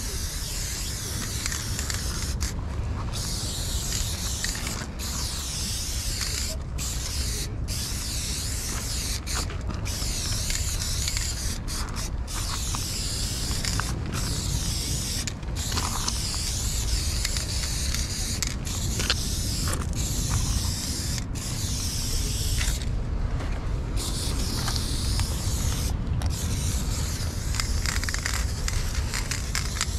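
Aerosol spray paint can hissing in long bursts, broken by many short pauses where the nozzle is let go. A steady low rumble runs underneath.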